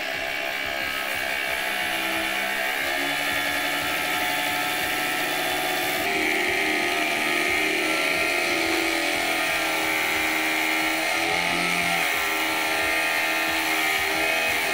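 Small electric scroll saw running steadily, its fine blade cutting through a thin brass tube, with its pitch wavering a little midway.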